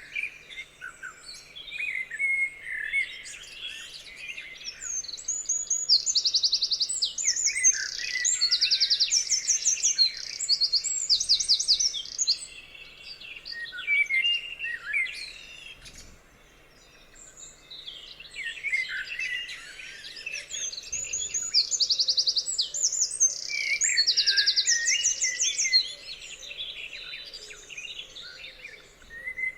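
Several songbirds singing together, with fast trills of rapidly repeated high notes among chirps and warbles. The singing swells in two busy stretches and thins briefly around the middle.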